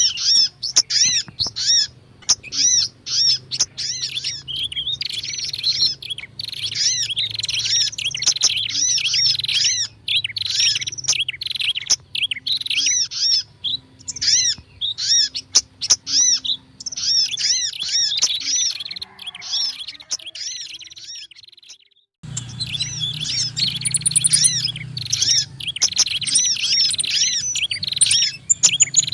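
Bird-lure recording of prinia (prenjak) calls mixed with sogon and sunbird calls: dense, rapid, high-pitched chattering chirps repeated without pause. It stops for about two seconds roughly two-thirds of the way through, then starts again.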